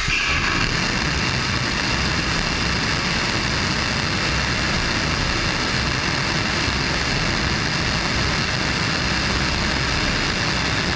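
Blue Origin BE-4 rocket engine, burning oxygen and natural gas, test-firing on a horizontal stand: a loud, steady rushing noise of the exhaust at full burn.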